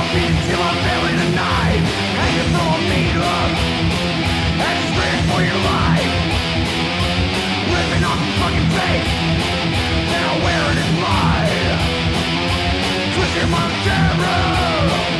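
Thrash metal song played at full tilt: distorted electric guitars and bass over fast drums, with pitch-bending lines running through it.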